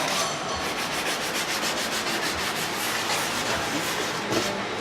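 Sandpaper rubbed rapidly back and forth on a metal exhaust flange, a steady rasping scrape, scouring off remnants of an old gasket so the flange will seal.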